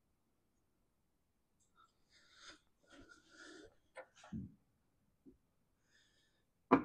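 Handling a metal ball bearing at a lawn-mower deck's spindle housing, pulled back off because it does not yet fit its recess. There is light scraping and a few small clicks with a short low thump, then a sharp knock near the end, the loudest sound.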